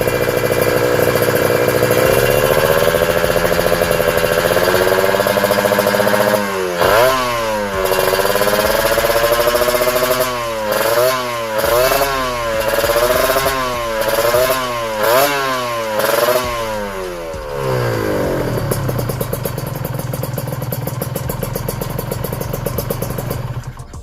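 Kawasaki Ninja RR 150's single-cylinder two-stroke engine idling, then revved in a run of quick throttle blips, the pitch rising and falling about once a second. It drops back to idle and shuts off near the end.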